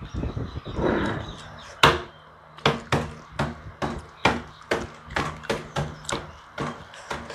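Boiled egg knocked repeatedly against a tabletop to crack its shell: a steady run of sharp taps, about two or three a second, starting about two seconds in.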